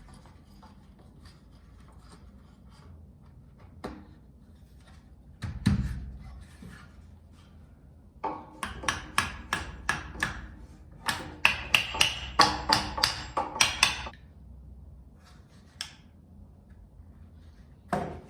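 Hammering on wood in two quick runs of blows, about three or four a second, each blow with a short ring. A single heavier thud comes a few seconds before the first run.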